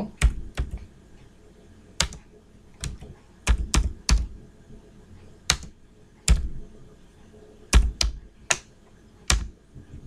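Keystrokes on a computer keyboard, typed slowly and unevenly: about fourteen separate key presses with pauses between them.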